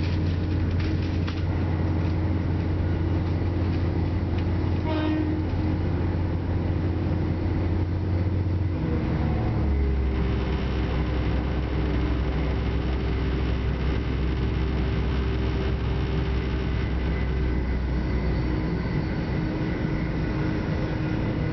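Interior running noise of a Chiltern Railways Class 168 diesel multiple unit at speed: a steady low engine drone under wheel-on-rail rumble. About nine seconds in the engine note steps down lower, and a steady whine runs alongside it for several seconds.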